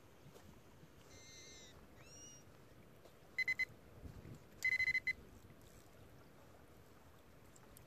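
Electronic carp bite alarm beeping in two short runs of rapid beeps: two beeps, then about a second later four or five more. This is the sign of a small pull or twitch on the line.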